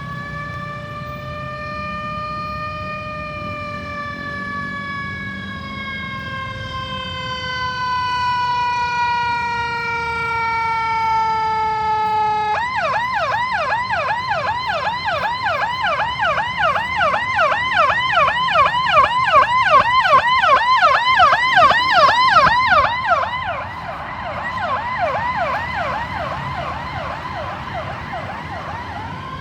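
Ambulance electronic siren. It starts as a slow wail whose pitch drifts gently downward, then switches suddenly to a rapid yelp partway through. The yelp grows louder, drops off sharply, and the siren goes back to a wail right at the end.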